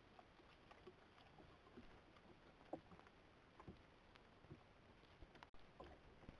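Near silence: faint night ambience through a trail camera's microphone, with scattered faint ticks and rustles and a brief dropout about five and a half seconds in.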